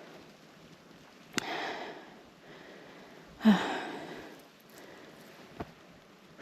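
A person breathing hard from exertion: two heavy exhales about two seconds apart, the second starting with a short grunt, with a sharp click just before the first.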